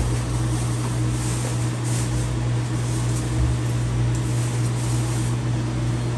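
Steady low mechanical hum with a pitched drone, with faint rustling of kitchen handling over it.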